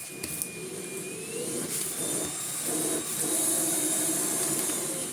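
Miele Blizzard CX1 bagless cylinder vacuum cleaner running, its motor whine rising in pitch about a second and a half in and the rush of air getting louder about three seconds in.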